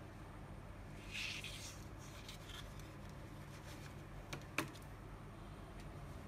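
Faint handling noise of a smartphone and its USB charging cable: a brief rustle about a second in, a few light ticks, then two sharp clicks a moment apart, the second the loudest, as the phone is set down on a plastic cutting mat.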